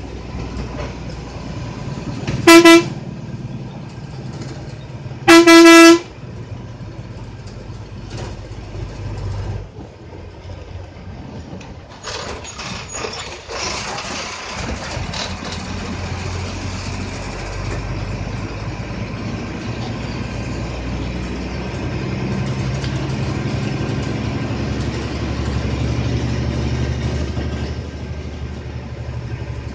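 Bus horn sounding twice, a short blast and then a longer one about three seconds later, over the steady running of the bus engine and road noise heard from inside the cabin, with rattling from about twelve seconds in.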